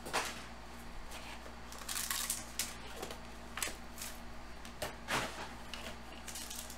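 Hands handling a small cardboard trading-card box and sliding a card pack out of it: soft rustling and scraping with a few light taps and clicks.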